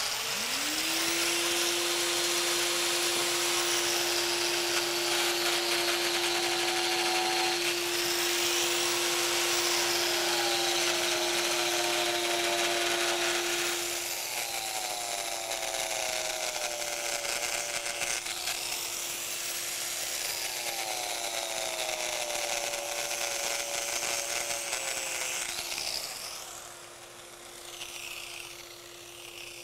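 Hand-held grinder fitted with a V-shaped crack chaser diamond blade, spinning up and cutting: a steady motor whine under a dense grinding noise whose pitch rises and falls as the blade is worked through the cut. The cutting eases off partway through and falls away near the end, while the motor keeps running.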